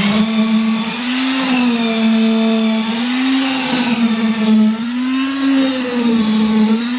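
Electric concrete vibrator running, a steady motor whine whose pitch rises and sags every second or two as the load on its head changes in the wet concrete; it is consolidating the pour, shaking out air voids.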